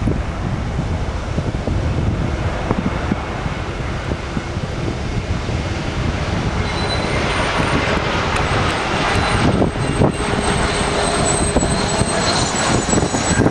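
Airbus A320 airliner on final approach, its jet engines a steady rushing noise that grows fuller as the aircraft nears, with a thin high engine whine coming in about halfway through.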